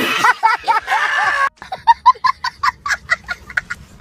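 Laughter from reaction-meme clips. It starts over a hissy recording, then about a second and a half in turns into a child's rapid, high-pitched cackling laugh of about five short 'ha's a second.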